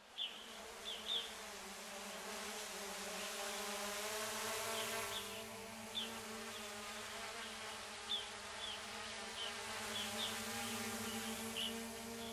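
Small FPV drone's propellers giving a steady buzzing hum, with short high chirps at irregular intervals over it.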